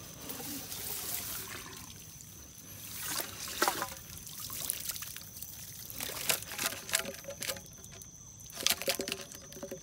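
Water trickling and dribbling with rustling as a blue PVC-pipe eel trap is pulled out of a flooded rice field, with sharp clicks about three and a half seconds in and again near the end.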